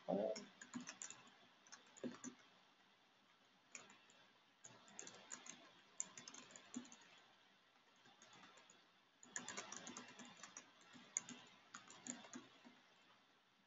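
Quiet typing on a computer keyboard: several short runs of key presses with brief pauses between them.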